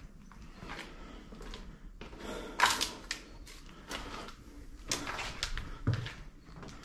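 Footsteps with irregular scuffs, scrapes and knocks in an empty room; the loudest scrape comes about two and a half seconds in, and a dull thump near six seconds.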